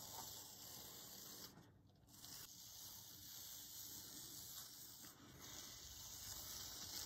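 Blue painter's tape being peeled off the edges of a painting on paper: a faint, continuous tearing sound with a brief pause about two seconds in.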